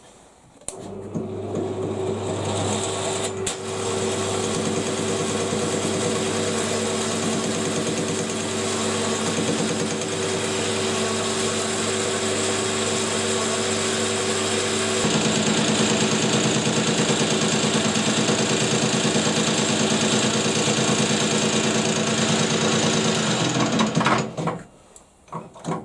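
Metal lathe running while its tool cuts across the edges of the chuck's soft jaws to square them up: a steady machine hum with cutting noise. It starts about a second in, gets louder and changes pitch about halfway, and stops shortly before the end.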